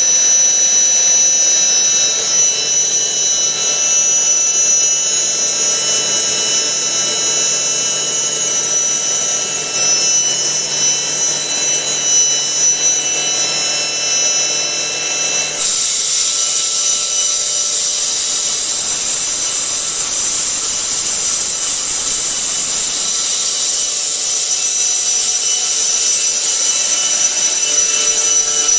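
Urschel Comitrol Model 1700 mill running at speed while milling high-fat desiccated coconut: a loud, steady whine with many high tones over a rushing hiss. About halfway through the sound shifts abruptly to a brighter, hissier tone.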